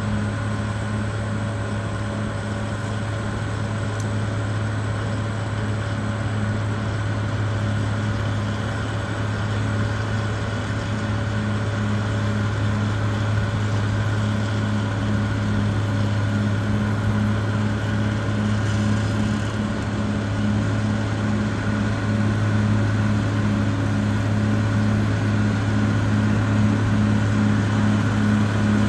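Caterpillar D6R XL bulldozer's diesel engine running steadily, a low drone with a regular pulsing beat, slowly getting louder.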